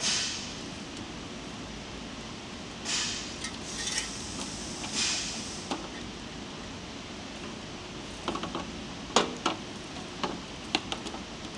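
Clear plastic hose being coiled by hand around brackets on a metal hopper box: a few brushing swishes, then, from about eight seconds in, a run of light taps and clinks as the hose and its fittings knock against the metal.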